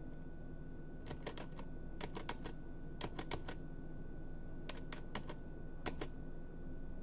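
Computer keyboard keys pressed in quick groups of three or four clicks, about five times, as Shift+Enter is struck repeatedly to run Jupyter notebook cells. A faint steady hum sits underneath.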